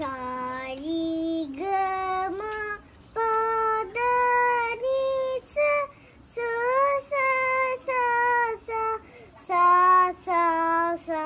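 A young boy singing unaccompanied, practising a song: a series of held notes in short phrases with brief pauses between them.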